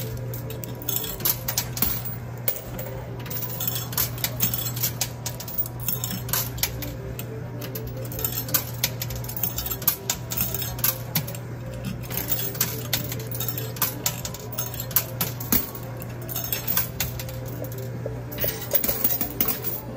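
Quarters clinking in a coin pusher machine as they drop onto the pusher deck and knock against the coins already there: many sharp clinks at irregular intervals. Under them runs the machine's steady low hum.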